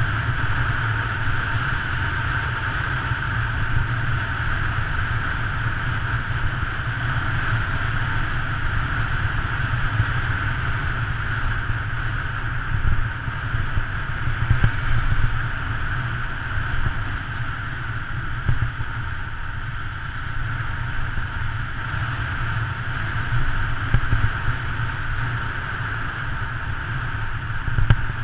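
Rushing wind buffeting the camera microphone on a road bicycle descending at speed, a steady low rumble with a few brief louder gusts.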